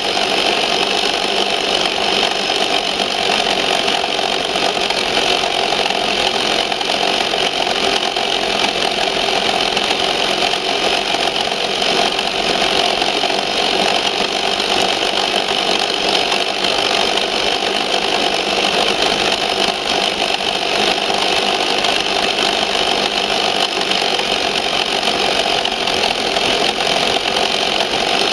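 A Tamiya Ford F350 RC truck's electric motor and gearbox whine steadily as it drives over rough dirt, with the body and chassis rattling. The sound is picked up close-up by a camera mounted on the truck itself.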